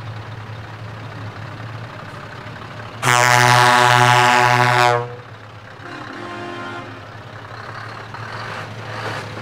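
A truck's diesel engine idling steadily, and about three seconds in a truck air horn sounds one loud blast lasting about two seconds.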